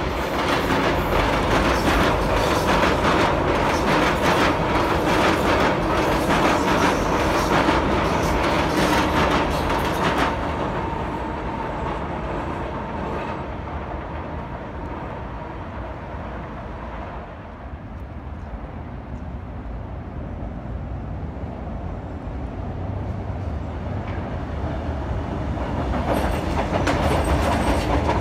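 Sydney Trains electric suburban train running on a viaduct, wheels clicking over the rail. Loud for the first ten seconds, it fades, then grows louder again near the end as a train draws close.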